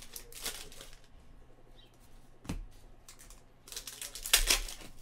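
Hands crinkling and tearing a trading-card pack wrapper and handling cards. There are short rustles, one sharp tap about two and a half seconds in, and the loudest crinkle near the end.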